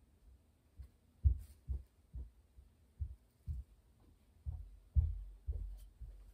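Footsteps on an indoor floor, dull thuds about twice a second as a person walks back toward the camera.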